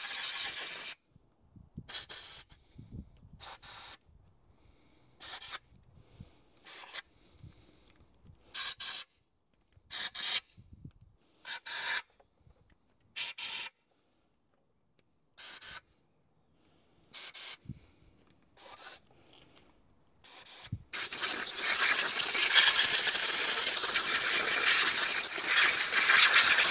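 Compressed-air blow gun blasting air through a bank of Honda VFR400 carburettors to clear dirt from blocked jets and passages: about a dozen short hissing bursts, then, about 21 seconds in, one long blast.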